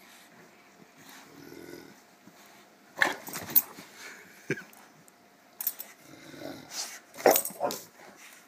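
An English Mastiff and an American Staffordshire Terrier play-fighting, growling in short sudden bursts. The loudest come about three seconds in and again about seven seconds in.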